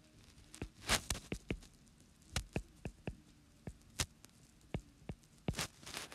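Irregular sharp taps and clicks, several a second at times, the loudest about a second in and around four seconds in.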